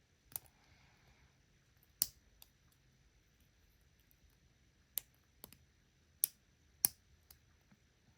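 Lock pick and tension wrench working the pins of a pin-tumbler challenge lock: scattered sharp little metallic clicks at uneven intervals as pins are lifted and set. The loudest clicks come about two seconds in and again around six to seven seconds.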